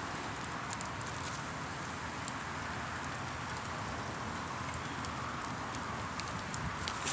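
Wood campfire crackling, with scattered small pops over a steady hiss.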